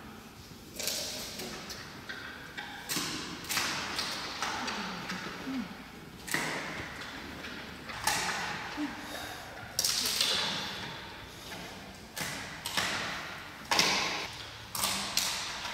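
Giant panda biting and chewing fresh bamboo stalks. Sharp, irregular cracks and crunches of splitting bamboo come about once a second, with louder snaps about ten and fourteen seconds in.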